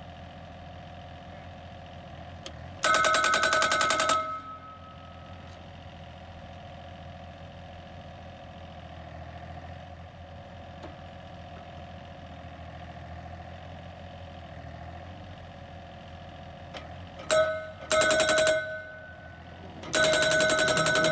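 Hydraulic post driver on a Yanmar mini excavator hammering a steel solar-array pier into the ground. It comes in three loud bursts of very rapid blows, about a second in, late on, and again near the end, and the steel post rings under each burst. Between bursts the excavator's diesel engine runs steadily.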